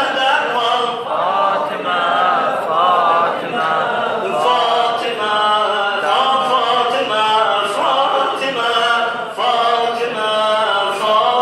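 A man chanting an unaccompanied devotional mövlud into a microphone, in long sung phrases that bend up and down in pitch.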